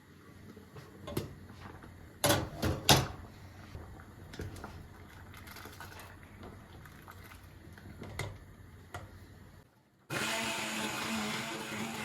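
Household handling sounds: scattered light clicks and a short run of clattering knocks about two seconds in. After a brief hush near the end, a steady appliance motor noise with a low hum starts.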